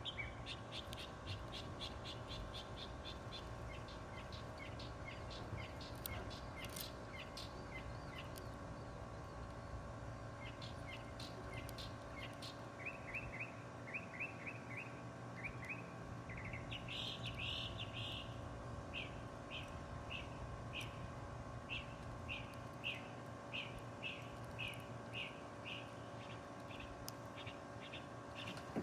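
Small birds chirping in quick short repeated notes, several a second, with a denser burst of chirping a little past the middle, over a steady faint background hum.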